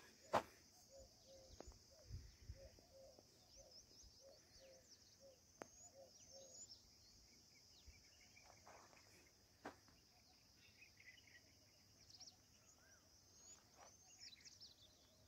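Faint open-country ambience: a steady high insect drone with scattered short bird chirps. A low note repeats a few times a second through the first half, and there is a sharp click about half a second in.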